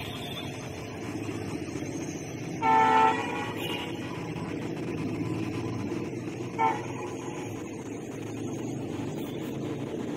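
WDP4D diesel-electric locomotive running as a light engine, its EMD 16-cylinder two-stroke engine giving a steady rumble as it draws away. Its horn sounds once for about half a second, about three seconds in, then gives a very short toot a few seconds later.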